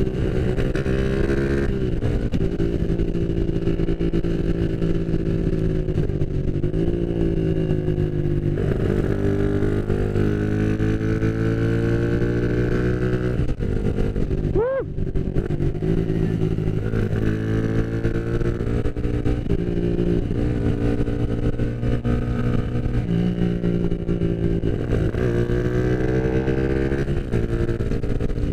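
Motorcycle engine heard on board while riding, repeatedly revving up through each gear and dropping back in pitch at the shifts. There is a brief dropout about halfway through.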